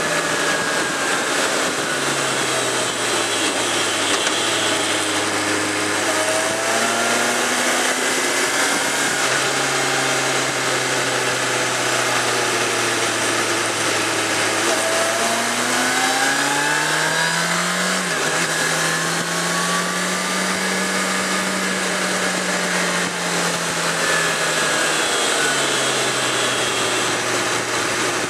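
Suzuki GSX650F's inline-four engine running on the move, mixed with wind rush. The engine note drops early on, holds, then climbs steadily to its highest pitch about two-thirds through under acceleration, and falls back again near the end as the throttle eases.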